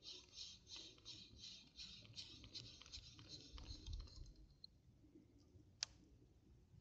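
Spinning reel being cranked to retrieve the line, a soft rhythmic ticking whirr about three times a second that stops about four seconds in. Near the end comes a single sharp click as the reel's bail is opened for the next cast.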